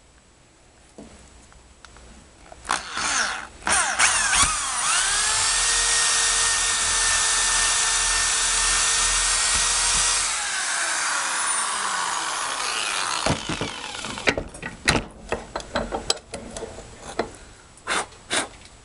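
Cordless drill boring through a stick of resinous fatwood held in a vise. A few short trigger blips, then the motor runs steadily for about five seconds and winds down with a falling whine. A run of sharp knocks and clicks follows.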